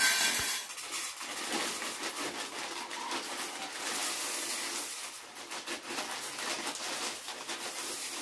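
Cornflakes pouring from a foil-lined bag onto a steel plate: the bag crinkling and the dry flakes pattering onto the metal.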